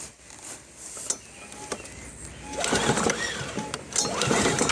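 Push mower engine cranked over by its recoil starter rope, with the spark plug out and a compression gauge screwed into the plug hole, so it turns without firing. The pulls come in the second half as a couple of louder surges. This is a wet compression test on an engine reading a low 30 psi.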